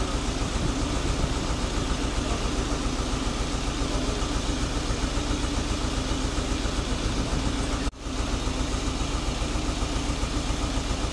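Tractor engine idling steadily, with a momentary break about eight seconds in.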